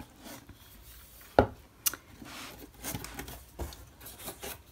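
Cardboard mailer box being opened by hand on a wooden tabletop: flaps rubbing and scraping, with a few sharp knocks, the loudest about a second and a half in.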